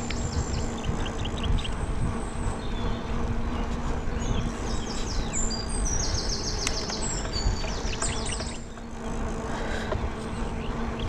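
Wind rumbling over the microphone of a bicycle moving along an open road, with a faint steady hum underneath. Above it, rapid series of high chirping trills come and go, busiest in the middle of the stretch.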